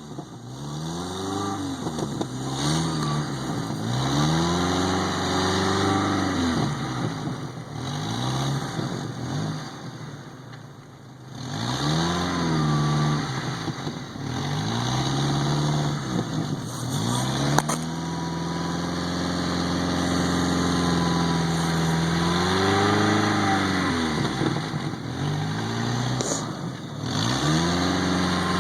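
1995 Jeep Wrangler engine revving up and dropping back again and again, a rise and fall every few seconds with a short steadier stretch, as the Jeep tries to pull out of the snow where it is stuck.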